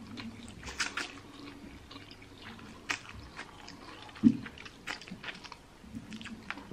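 Close-miked wet chewing and small slurps of spicy instant noodles, with many soft mouth clicks and a brief louder low sound about four seconds in.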